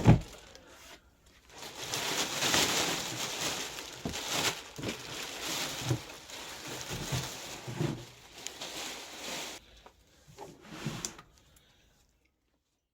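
Plastic bag rustling and crinkling as it is pulled off and handled, in uneven bursts that die away near the end.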